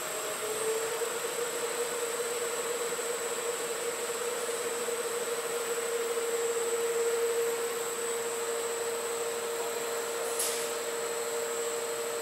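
Industrial VAS universal mixer running with a steady hum and hiss while mixed powder discharges from its outlet pipe. A steady tone sets in about half a second in, and there is a short click near the end.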